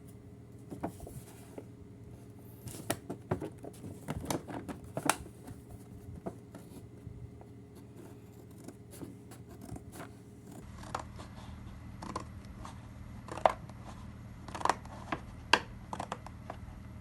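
Plastic toy packaging and pieces being handled during an unboxing: scattered short clicks, snips and crinkles, with a few sharper snaps near the end.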